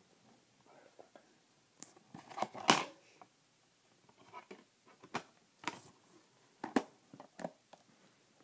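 Plastic DVD cases being handled: scattered clicks and knocks with soft rustling between them. The loudest knock comes a little under three seconds in.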